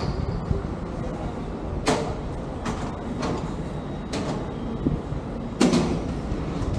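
A vehicle running with a steady low rumble, broken by sharp knocks or rattles about every second.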